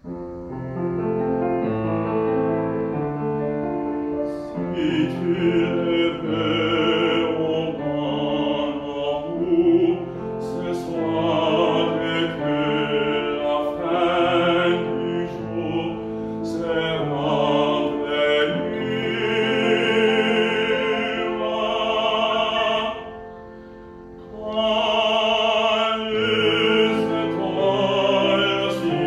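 A baritone sings a French art song in classical style, with piano accompaniment. The piano plays alone for about the first four seconds, then the voice enters with vibrato. Near the end there is a short quieter passage before the voice comes back in strongly.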